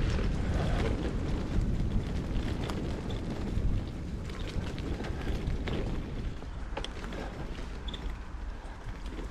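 Low wind rumble on the microphone while riding a bicycle along a dirt path, with the tyres rolling over the ground and scattered small clicks and rattles, the rumble slowly easing off.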